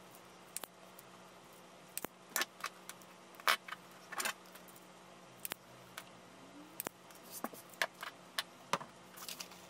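Small wire cutters snipping and clicking as the insulation is stripped off the ends of speaker wire. The clicks are short and sharp, come at irregular intervals, and are loudest a few seconds in.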